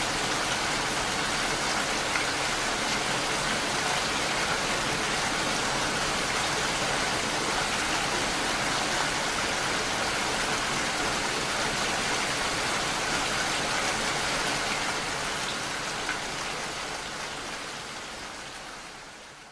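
Steady rain falling, an even hiss of drops that fades out over the last few seconds.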